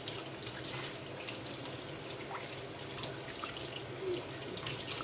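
Kitchen tap running steadily into a stainless steel sink, the stream splashing over hands rinsing and cleaning a soft-shell crab, with a few faint small ticks of handling.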